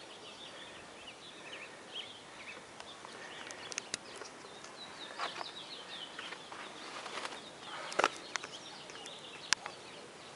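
Small birds chirping and calling over a faint outdoor background, with a few sharp clicks, the loudest about eight seconds in.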